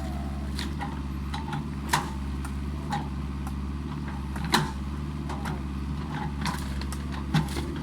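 Mini excavator engine running steadily, with a handful of short, sharp knocks from the machine at work.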